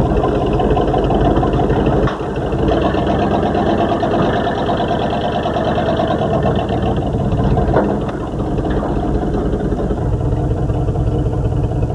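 Truck engine running steadily while driving, with continuous road noise.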